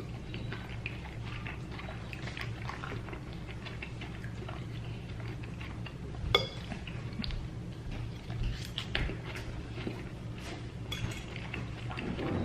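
Fork clinking and scraping on a plate while eating salad, scattered light clicks with a few louder ones, over a steady low hum.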